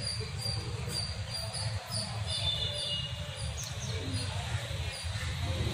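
A bird chirping repeatedly, short high chirps about twice a second, over a low steady rumble.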